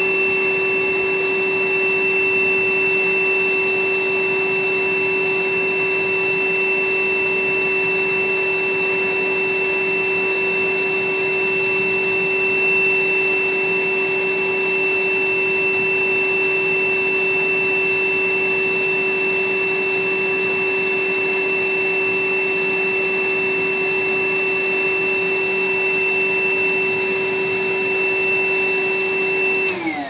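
Milwaukee M18 cordless wet-dry vacuum running steadily and loud, about 90–95 dB beside the machine, with a steady motor whine. Near the end it is switched off and the motor winds down, its pitch falling.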